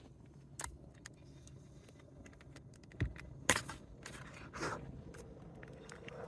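Handling of camp cooking gear: scattered light clicks, a dull thump about three seconds in, a sharp click half a second later, and a short scrape.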